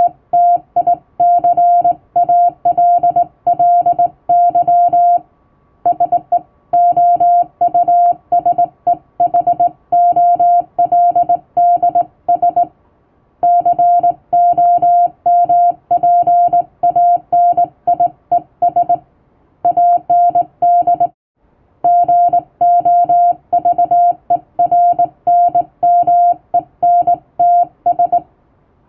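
Hand-keyed Morse code (CW) tone: a single steady mid-pitched beep keyed rapidly on and off in dots and dashes, spelling out plain-language English text, with a few pauses of about a second between runs.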